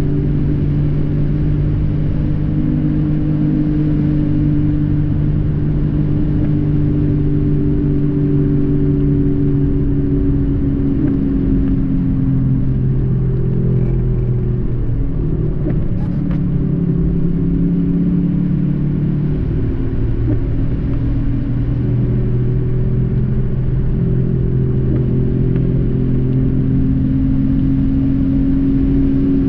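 Car engine hum and road rumble heard from inside the cabin while driving at a steady speed, the engine note drifting slowly in pitch and shifting around the middle.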